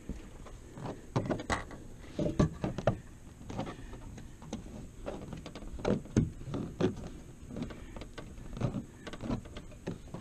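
Hands working a canvas top into a pop-up camper's metal track: irregular knocks and clicks against the metal, with fabric rustling between them.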